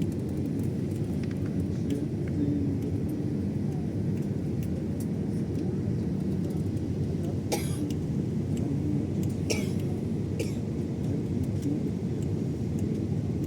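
Airbus A320 cabin noise in cruise: a steady low rumble of engines and airflow. A few brief sharp sounds stand out a little past the middle.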